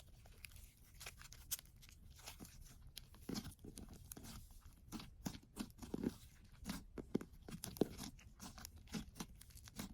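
Slime being kneaded and squished with Reese's candy worked into it: faint, irregular sticky clicks and crackles.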